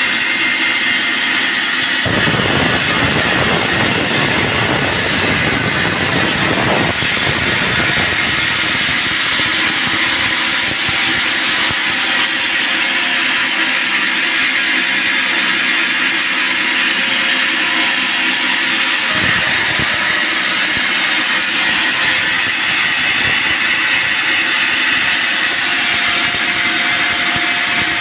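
Band sawmill running: a loud, steady mechanical noise whose texture changes about two seconds in and again just before twenty seconds.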